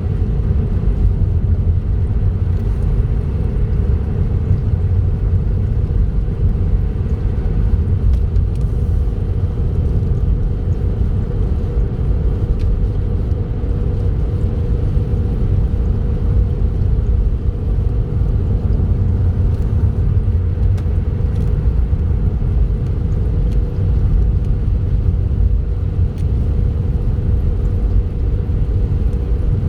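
A car driving steadily along a highway: a continuous low road and engine rumble with a steady hum.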